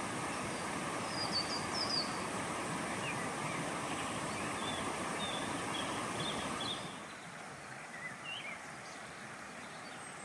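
Outdoor ambience: a steady rushing noise with small birds chirping over it. About seven seconds in the rushing drops away, leaving quieter background and a few bird chirps.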